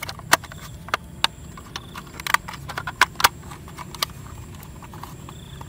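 Hard plastic clicks and knocks from a toy tanker truck's body parts as they are handled and pressed together. About a dozen sharp clicks come at an irregular pace, with the loudest near the start and between two and three and a half seconds in.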